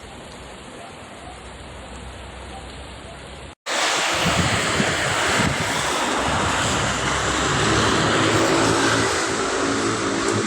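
Steady rushing of rainwater, then, after a sudden cut, a much louder wash of water with a car engine humming through it, as a car drives through the flooded street.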